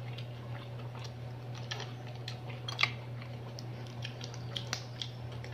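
Close-up eating sounds of a cooked mud crab being eaten by hand: scattered small clicks and crackles of crab shell being pulled apart, with chewing, over a steady low hum.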